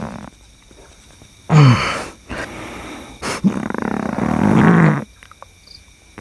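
A man grunting and groaning with strain, like an animal roaring: a loud cry falling in pitch about a second and a half in, then a sharp clap and a longer rasping groan from about three and a half to five seconds.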